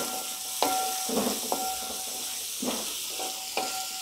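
Sliced shallots and onions sizzling in hot oil in a wide metal uruli, stirred with a wooden spatula. Each scrape of the spatula makes the pan ring with a clear tone, about six strokes at irregular intervals over a steady hiss of frying.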